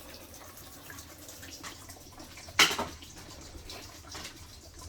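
Alcohol being poured from a bottle into the tank of a resin 3D-print wash station, a faint trickling, with one sharp knock about two and a half seconds in and a few lighter ticks.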